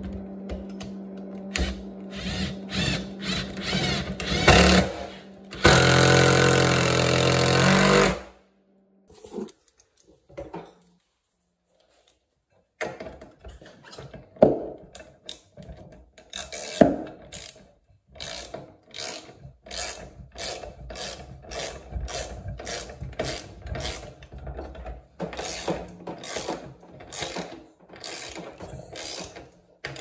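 A cordless drill driving screws into a wooden mounting board, with short starts and then one longer steady run. After a pause, a socket ratchet clicks steadily, about two clicks a second, as nuts on a heat exchanger's mounting bracket are tightened.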